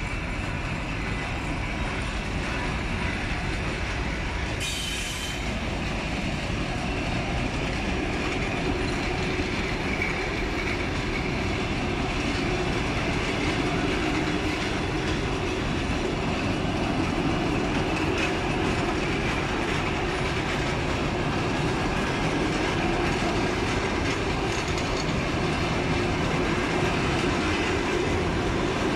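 Passenger coaches of a train rolling past along the track, with the steady running noise of wheels on rails, clicking over rail joints and growing slightly louder. A brief high squeal comes about five seconds in.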